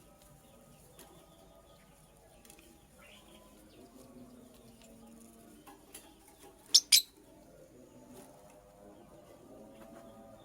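Lovebird giving two short, sharp chirps in quick succession about seven seconds in, over faint background bird sounds and light clicks.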